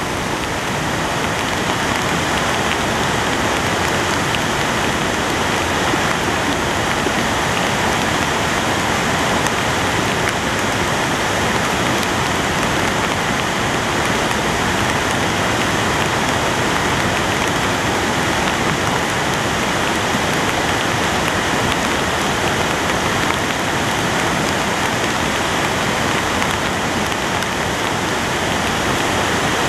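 A flood-swollen river rushing in spate: a loud, steady noise of churning water that never breaks.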